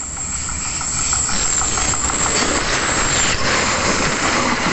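Diesel locomotive hauling the Sri Tanjung passenger train, approaching and passing close by on the track. It grows louder over the first second, then stays loud as the locomotive and the power car behind it go by.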